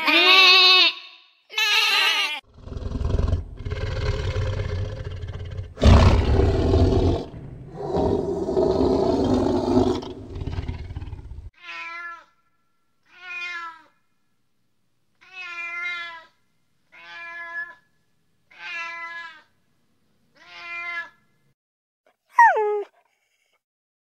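Two sheep bleats at the start, then a long rough growl with a deep rumble for about nine seconds. A fishing cat then meows six times in short, evenly spaced calls, and a brief cry falling sharply in pitch comes near the end.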